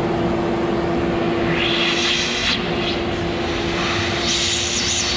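Wet/dry shop vacuum running with a steady motor hum, its hose nozzle held at the fuel pump opening in the top of a fuel tank. Twice the rush of air into the nozzle rises to a louder hiss, about two seconds in and again near the end.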